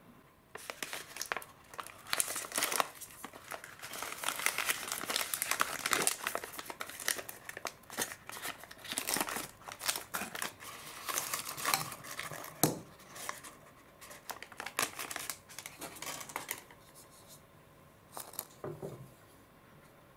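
Foil-lined plastic sachet of freeze-dried egg soup crinkling and tearing open as it is handled, a dense crackle that dies down after about 16 seconds, with a few sparser, softer sounds near the end.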